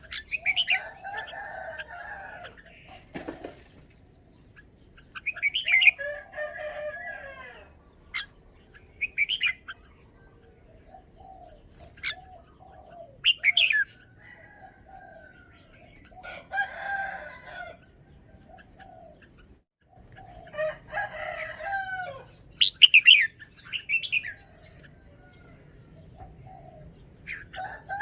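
Caged red-whiskered bulbul singing, short bright song phrases repeated every few seconds. A sharp click sounds about three seconds in.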